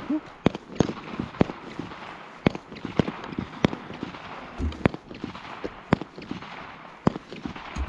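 Gunshots: about ten sharp reports at irregular intervals, roughly one every half second to a second.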